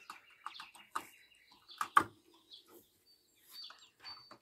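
Rustling and clattering as the metal poles and netting laid over a wooden pallet compost bin are handled and lifted, with one sharp knock about two seconds in. Birds chirp faintly in the background.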